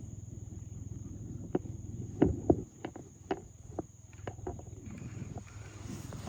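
Crickets or similar insects keep up a steady, high-pitched shrill. Between about one and a half and five seconds in, a scattered series of sharp irregular clicks and knocks sounds over a low rumble.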